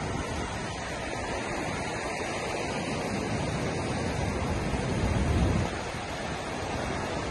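Ocean surf breaking and washing up the beach, with wind buffeting the microphone; the rush swells louder about five seconds in.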